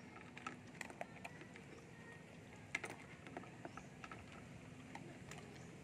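Shiba Inu eating dry kibble from a stainless steel bowl: faint, irregular crunching and clicks of kibble against the metal.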